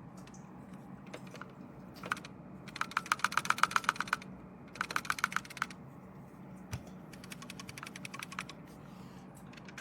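Two quick runs of sharp plastic button clicks, about ten a second, with a few single clicks before and after.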